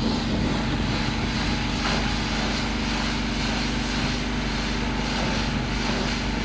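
Pressure washer running steadily: a motor hum under a loud, even hiss of high-pressure spray.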